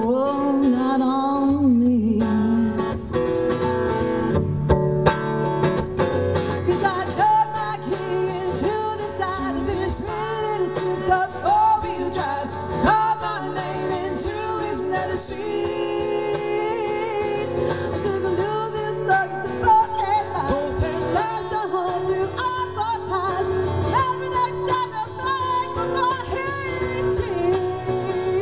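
A live song: a woman singing into a microphone over a strummed acoustic guitar.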